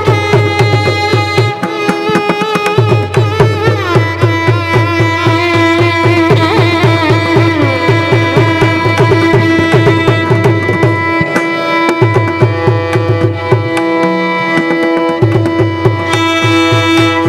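Carnatic violin music: violins play sliding, ornamented melodic lines over fast, dense mridangam strokes and a steady drone.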